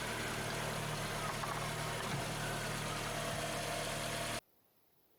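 VW Golf Mk5 petrol engine idling steadily. The sound cuts off suddenly about four seconds in.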